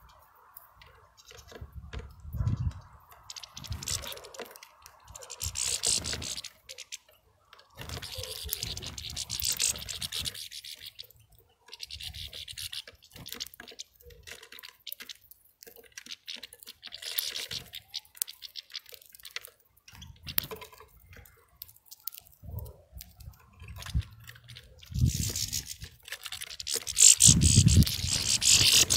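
A saw cutting in irregular spells of strokes lasting a second or two each, loudest near the end.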